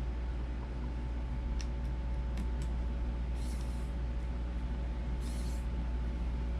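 Light clicks and two brief scratchy rustles of small laptop parts being handled and fitted, over a steady low hum.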